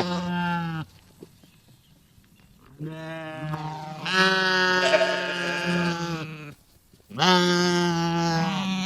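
Sheep bleating: one call trails off in the first second, then after a short pause comes a long, wavering baa, and a second loud baa starts near the end.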